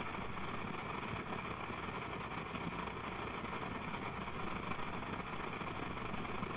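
Coleman 530 pressurized white-gas stove burning at full open, a steady, even rushing sound. The burner has just been lit and is still warming up, with the flame burning tall and erratic.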